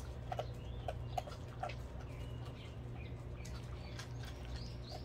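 Small birds chirping on and off, with a few short crunches from Jindo dogs eating dry kibble out of a steel bowl in the first two seconds, over a low steady hum.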